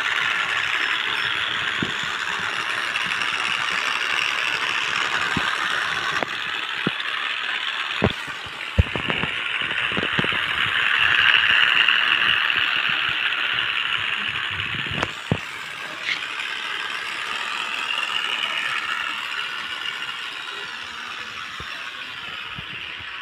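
Small battery-powered DC geared motor running a toy vehicle: a steady, high-pitched gear whine with a few sharp clicks and knocks in the middle, growing quieter over the last several seconds.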